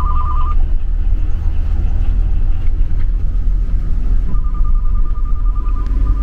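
Steady low rumble of a vehicle, with a rapid electronic two-tone beeping at the start and again from about four seconds in.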